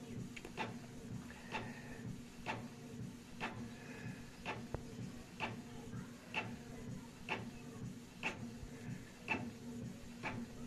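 Canon Pixma G3012 inkjet printer printing: a steady motor hum with a sharp click about once a second, and a faint whine between some of the clicks.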